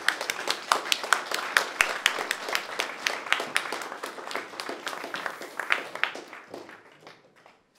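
Audience applauding with many quick, irregular claps that thin out and die away near the end.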